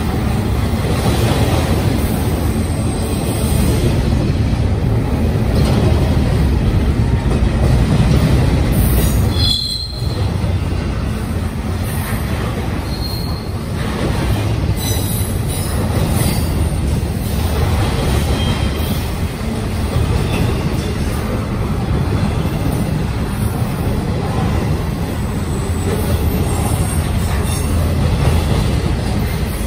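Union Pacific freight train's double-stack container well cars rolling past, a steady loud rumble of steel wheels on rail, with a few brief high wheel squeals.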